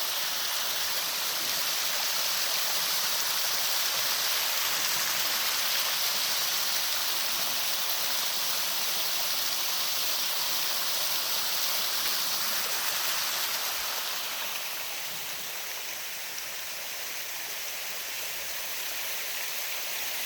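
Steady rush of falling water from a waterfall, easing a little about two-thirds of the way in.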